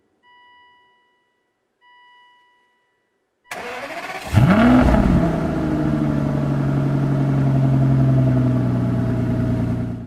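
Two short electronic dashboard chimes about a second and a half apart. Then the starter cranks briefly and the Aston Martin DB9's 6.0-litre V12 fires, flares up in revs and settles into a steady idle. The idle cuts off suddenly at the end.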